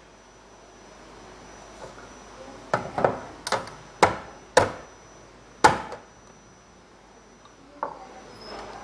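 A clear plastic cup and other small items knocked and set down on a tabletop: about six sharp knocks over some three seconds, then one fainter knock near the end.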